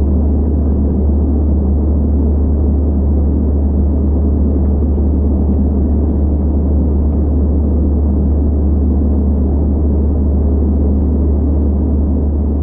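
Steady cabin noise of an Airbus A320-216 in flight, heard inside the cabin at a window seat beside the wing: a deep, even engine-and-airflow drone from its CFM56 turbofans, with no change in pitch.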